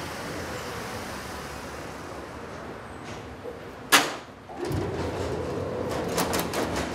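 Doors of a Wuppertal Schwebebahn car opening at the platform: a sharp, loud burst about four seconds in, then a steady hum with a few clicks as the doors slide open.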